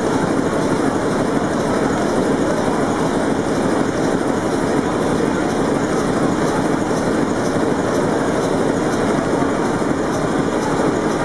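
Large old multi-cylinder marine diesel engine with open rocker gear running steadily, with a regular clatter about two to three times a second.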